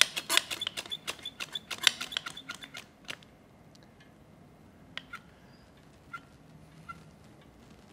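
Hand-operated sausage caulking gun being pumped to squeeze out a bead of flooring adhesive, its trigger mechanism clicking quickly, about five times a second. The clicking stops about three seconds in, and a few single clicks follow.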